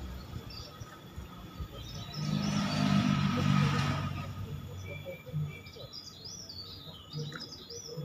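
Caged tralis songbird chirping: scattered short, high whistled notes, then a quick run of chirps near the end. A swell of low rumbling noise rises and fades in the middle.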